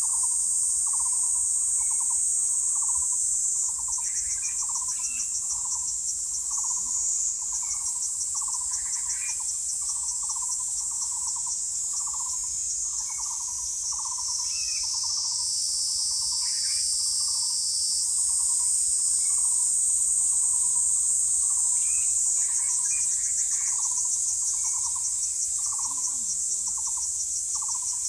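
A short, low call repeated steadily about three times every two seconds, over a continuous high insect chorus that pulses rapidly, with a few brief bird chirps scattered through.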